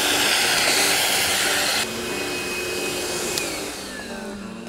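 Vacuum running with its corrugated hose sucking debris out of an aircraft fuselage. The rush of air cuts off sharply about two seconds in. From there the motor's whine falls in pitch as it winds down.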